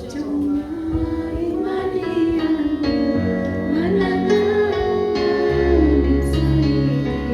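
A voice singing a slow gospel melody in long, gliding held notes over instrumental accompaniment. A deep bass note comes in about five and a half seconds in.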